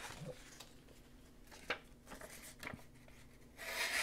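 A few faint clicks, then near the end a short hissing rasp as the Begg Microburst pocketknife's VG10 blade slices through a sheet of paper.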